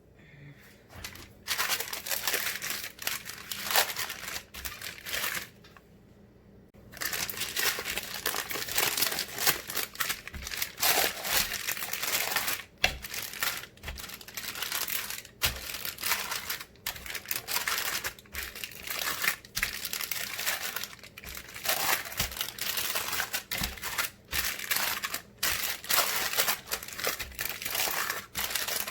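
Dense, irregular crinkling and rustling, like plastic or paper being handled, with a short pause about six seconds in.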